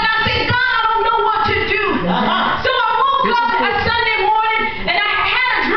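A woman preaching into a hand-held microphone, her amplified voice half-sung, with some pitches held long between bending phrases.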